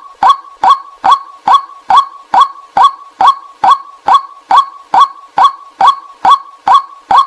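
White-breasted waterhen calls: a short 'kwak' note, dropping slightly in pitch, repeated at a steady, even pace of a little over two a second. This is a decoy call for luring waterhens in.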